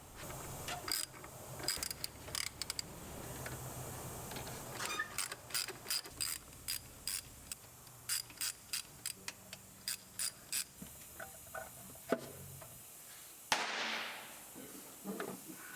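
Hand ratchet wrench clicking as it is swung back and forth, in short regular strokes about two a second through the middle, with a brief hiss near the end.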